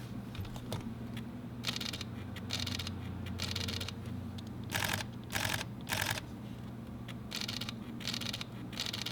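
Fujifilm mirrorless camera's mechanical shutter firing about nine times, soft short clicks at uneven intervals. It is the quietest-sounding shutter of the Fujifilm bodies being compared.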